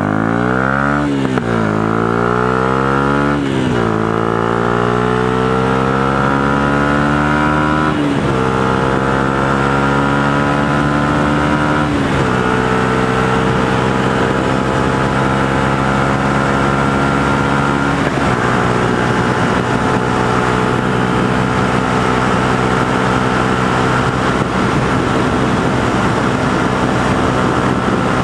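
Yamaha YZF-R125's 125 cc single-cylinder four-stroke engine, fitted with a Devil aftermarket exhaust, accelerating hard through the gears: its note climbs and drops with five upshifts, then holds steady at about 100 km/h cruising speed. Wind rush accompanies the engine.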